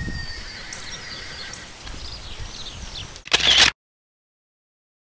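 Birds chirping over faint outdoor background noise, with a dull thump at the start. About three seconds in comes a short, loud burst of noise, and then the sound cuts out to dead silence.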